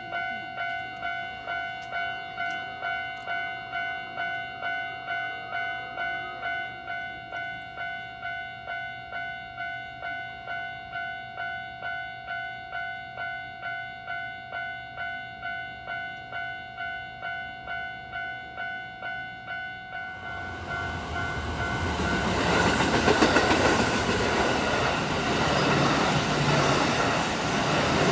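Japanese railway crossing alarm bell ringing, about two electronic dings a second. About twenty seconds in, a Kintetsu electric train passes over the crossing, its loud wheel-and-rail rush drowning out the still-ringing bell.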